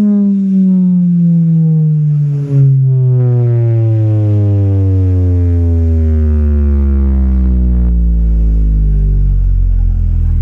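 Loud sound-system playback of a bass test sweep: one buzzy tone gliding slowly and steadily down in pitch into deep sub-bass over about ten seconds.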